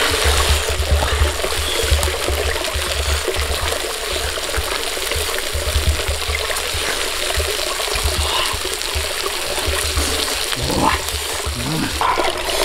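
Stream water running over rocks, a steady rush, with irregular low rumbling underneath.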